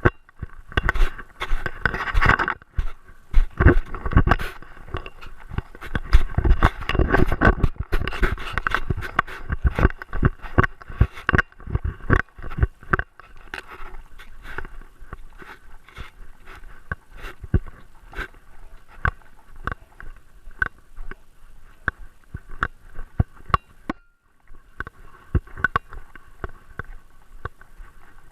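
Scraping, rubbing and clicking of a camera strapped to a Great Dane as the dog moves. The clicks come thick and fast at first, then thin out after about twelve seconds.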